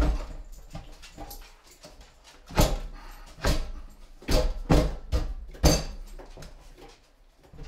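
Stainless steel drop-in sink being pounded down by hand into its countertop opening: about five heavy thumps with a short metallic ring, spread over a few seconds. The sink is sticking and will not drop fully into the hole.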